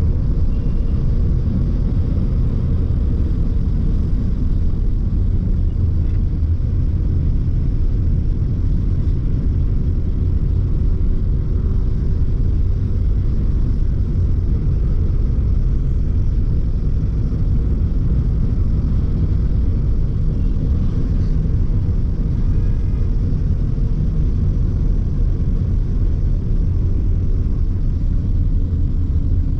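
Steady low rumble of a moving car, engine and road noise heard from inside its cabin.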